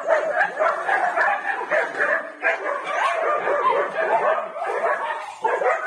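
Several puppies yapping and whimpering, their high-pitched yelps overlapping almost without a break.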